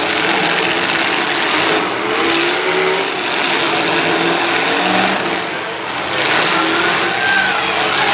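Several demolition derby cars' engines revving hard at once over a dense, steady din, their pitches wavering up and down as they push and ram.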